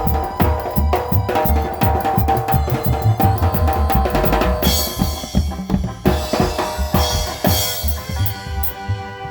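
Drum kit played in a busy groove of bass drum and snare strikes, with cymbal crashes about halfway through and again near the end.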